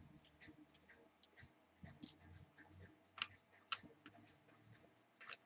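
Faint, scattered small clicks and taps of screws being undone and handled on a netbook's case, a few sharper ticks standing out.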